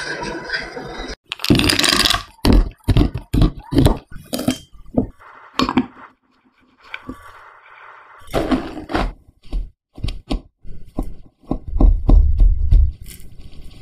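Close-up food-preparation sounds: runs of sharp knocks and taps of kitchen utensils against glass bowls, in two bursts with a near-silent gap in the middle. The heaviest, deepest thuds come near the end, as a plastic scraper cuts through a crumbly flour mixture in a glass bowl.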